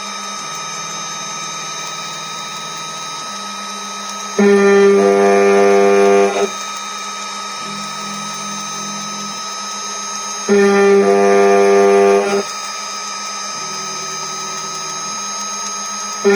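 CNC router spindle running at 12,000 rpm with a 4 mm two-flute endmill machining aluminium: a steady high whine, with a loud buzzing tone each time the cutter engages the metal on a pass. Each pass lasts about two seconds and comes roughly every six seconds, with a quieter, lower hum between passes.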